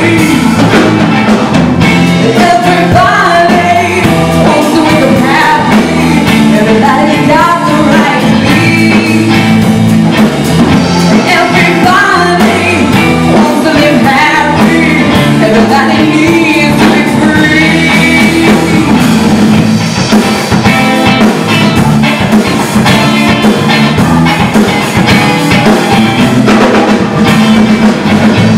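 Live rock band playing: a woman singing lead over electric guitar, electric bass and a drum kit.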